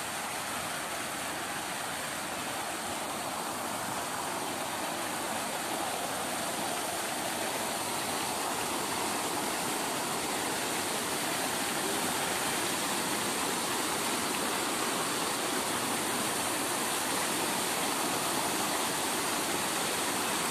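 Arching water jets of a bridge fountain splashing down, a steady rush of water that grows slowly louder.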